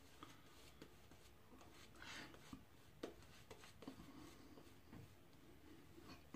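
Shaving brush working lather onto the face: faint soft swishes of wet bristles on skin, with a few small clicks.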